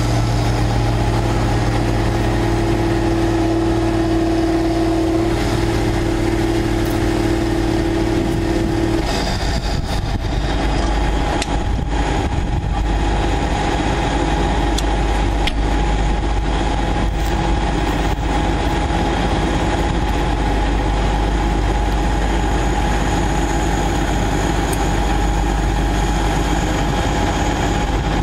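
Large farm tractor's diesel engine running steadily. About nine seconds in, its even hum gives way to a rougher, lower running note.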